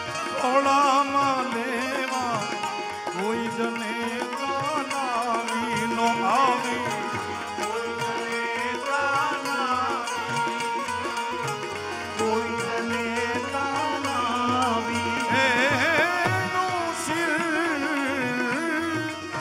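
Live Gujarati folk music: a voice sings a wavering, ornamented melody without clear words over harmonium accompaniment.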